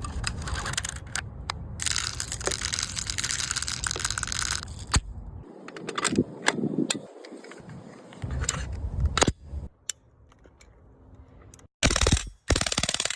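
Crunching, rustling handling noise broken by a number of sharp clicks, then a short quiet spell and a few loud sudden bursts near the end.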